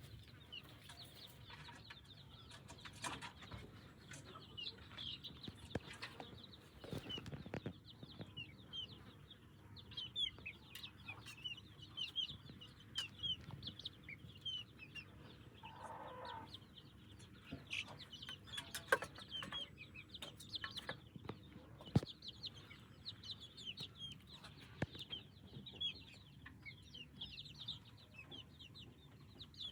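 Chicks peeping constantly in short high chirps, with a hen clucking now and then and scattered light knocks.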